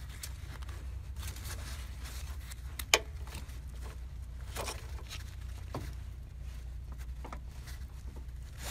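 Scattered light clicks and scrapes of pliers and gloved hands working a spring hose clamp along a rubber coolant hose, with one sharper click about three seconds in, over a steady low hum.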